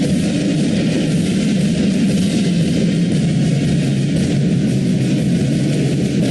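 Loud, dense instrumental music playing continuously.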